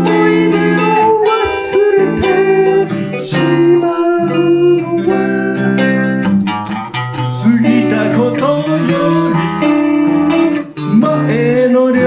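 Electric guitar playing an instrumental lead passage: a Van Zandt Telecaster through a Roland JC-120 amp, with held notes and string bends.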